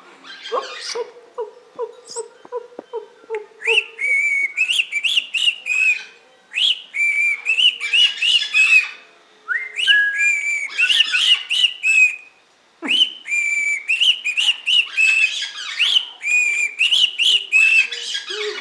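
A pet bird whistling: first a few seconds of lower, evenly repeated notes, then long phrases of quick, high whistled notes that hook up and down in pitch, broken by short pauses.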